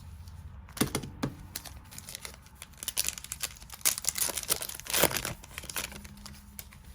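Foil booster-pack wrapper crinkling and being torn open: a scatter of sharp crackles, thickest and loudest between about three and five seconds in.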